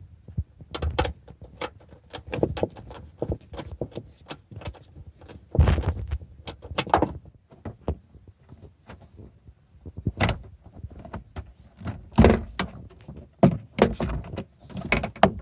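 Plastic car interior trim being handled and worked loose by hand, with tools or fasteners: irregular knocks, clicks and rubbing, with a few louder thumps.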